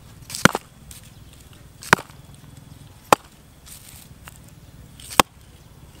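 Four sharp knocks, spaced unevenly over several seconds: a stick striking a hard, round object on the ground. The first knock is the loudest.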